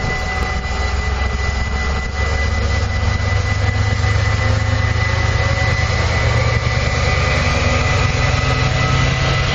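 Diesel locomotive's engine running as it rolls slowly past, a steady low drone with a thin high whine over it. From about six seconds in a second whine slowly rises in pitch.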